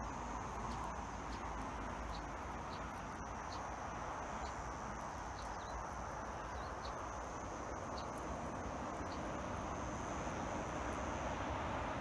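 Steady roadside hum of traffic, growing a little louder near the end, with a faint high insect drone and a few short high chirps.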